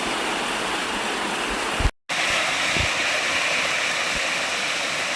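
Waterfall rushing steadily, a constant hiss of falling water. It drops out for an instant about two seconds in, then comes back slightly brighter.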